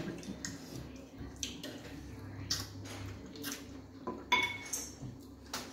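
Eating fufu and light soup by hand: irregular wet smacks and clicks of chewing and of fingers working in the soup, over a low steady hum.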